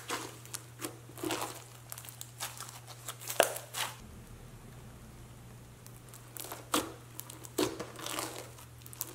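Clear slime packed with slushie beads being squeezed, pressed and stretched by hand, giving irregular crinkly crackling and popping as the beads shift and the slime tears, with a quieter lull about halfway through.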